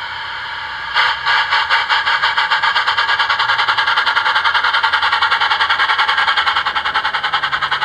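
Steam sound card in a radio-controlled Gauge 1 Hall locomotive model playing a steady steam hiss, then from about a second in a fast, even run of steam chuffs as the loco moves off. The chuffs are far too fast for the wheel revolutions, and the card's setting still needs turning down.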